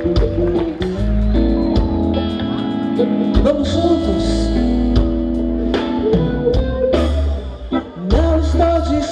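Live band music, with electric bass, guitar, keyboards and drums, and a woman singing lead into a microphone; her voice comes in about three seconds in and again near the end.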